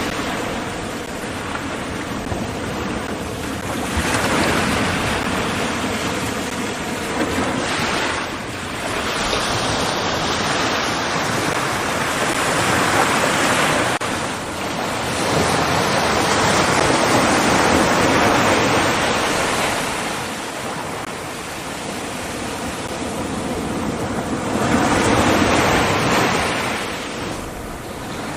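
Ocean surf: waves breaking and washing in, a loud rushing that swells and fades every few seconds.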